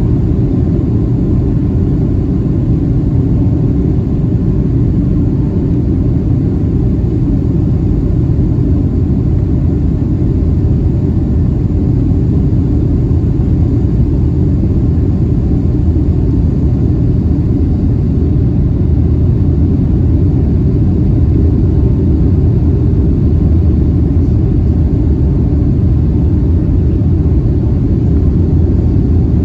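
Steady low rumble inside the cabin of a Boeing 757-300 airliner: engine and airflow noise heard from an economy window seat, with no sudden thump or surge.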